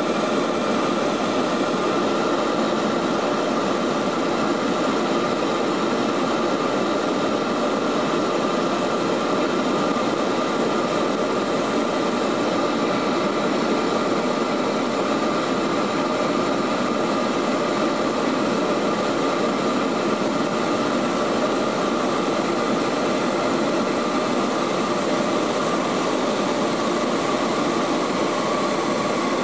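Cabin noise of a Lockheed L-188 Electra in flight: its Allison 501 turboprop engines and propellers give a steady, unchanging drone with a high hum running through it.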